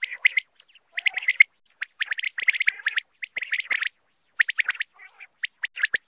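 Common quail calling: quick clusters of short, high chirping notes, broken by brief pauses.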